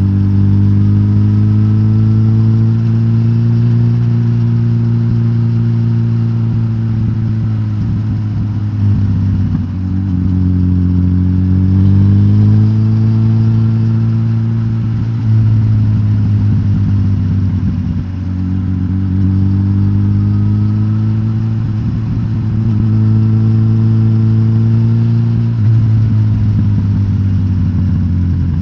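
Suzuki GSX-S1000GT's inline-four engine running through its de-catted stock exhaust. The engine note dips and climbs back up a few times, around 10, 18 and 26 seconds in.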